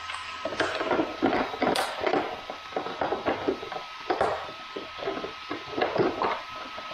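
Hands fitting plastic parts and a bracket into a Honda Super Cub C125's battery compartment: an irregular run of small clicks, knocks and rattles.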